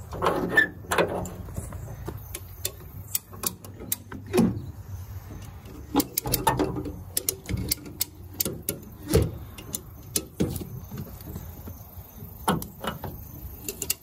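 Irregular clicks and knocks of hand tools working on a car's crushed quarter panel, with one louder knock about nine seconds in.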